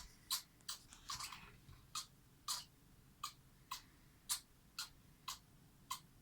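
A series of short, dry coughs, about two a second, in a severe coughing fit.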